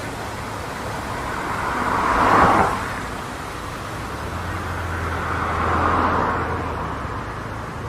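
Road traffic with two vehicles passing close by, each a swell of tyre and engine noise. The first, about two seconds in, is the louder and falls away quickly; the second, around six seconds in, is softer and slower.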